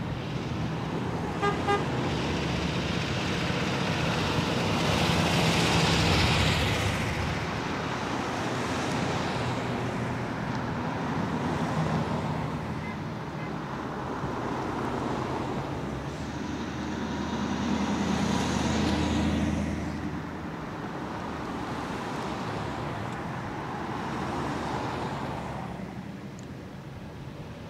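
A procession of Chevrolet Corvettes driving past one after another, their V8 engines swelling and fading as each car goes by. Two short horn toots sound about one and a half seconds in.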